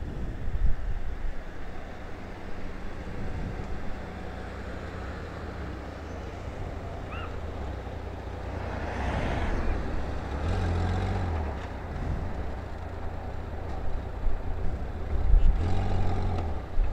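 Honda Gold Wing GL1500 flat-six engine idling with a steady low rumble, with street traffic passing; a vehicle goes by about nine to eleven seconds in and another near the end.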